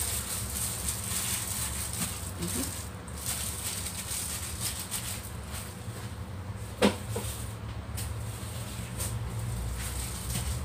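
Gloved hand handling and arranging marinated chicken pieces in a ceramic bowl, over a steady low hum. One sharp, short sound stands out about seven seconds in.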